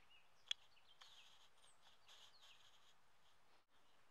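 Near silence: faint outdoor ambience with small birds chirping, and a single sharp click about half a second in.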